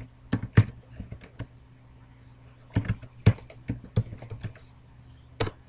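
Computer keyboard keys being typed in two quick runs of clicks with a short pause between, then a single louder keystroke near the end.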